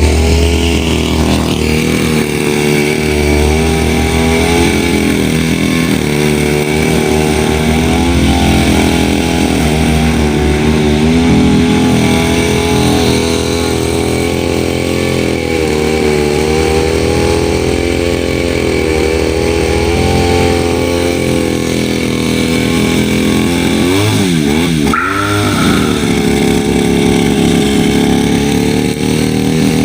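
Small grass-cutter engine running steadily, its pitch wavering a little. About four-fifths of the way through, the engine speed swings quickly up and down for a second or two, then settles back to its steady run.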